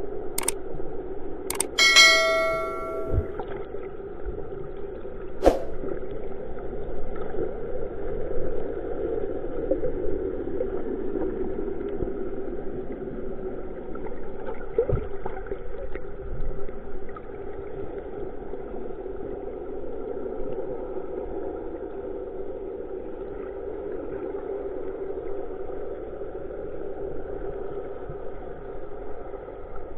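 A few sharp clicks and a bell-like ding about two seconds in, as from a subscribe-button animation effect. Under them runs a steady, muffled rumble of water heard by a submerged camera.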